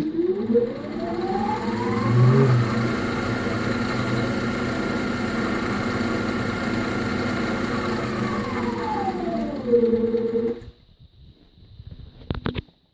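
Union Graduate lathe's electric drive speeding up to maximum with a rising whine, running steadily for several seconds, then slowing and stopping about two seconds before the end, with a few faint clicks after. The noise is what the owner takes for a worn bearing inside the drive.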